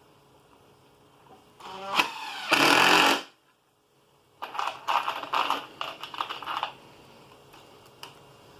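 Handheld power drill working into a wooden table leg. It spins up with a rising whine and runs briefly, then a second, choppier stop-start run follows about four and a half seconds in.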